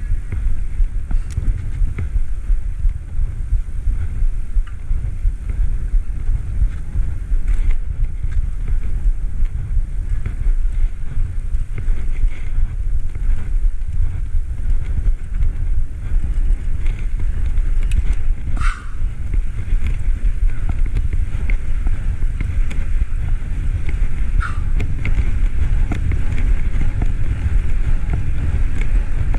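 Wind buffeting the microphone of a camera on a moving bicycle: a steady low rumble with a noisy hiss above it. Two short high chirps stand out, one about two-thirds of the way through and another about six seconds later.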